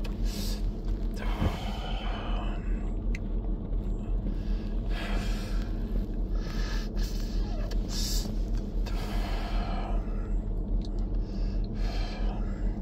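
Steady low rumble inside a car cabin. A man's breaths as he draws on and exhales a cigarette come through every few seconds.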